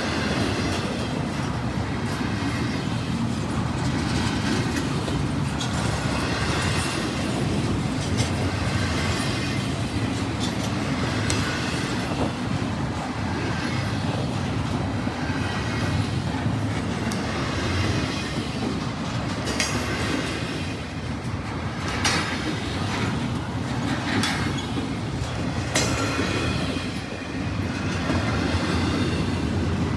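Freight train cars rolling past with a steady rumble and the clickety-clack of wheels over rail joints. Short high wheel squeals come through now and then.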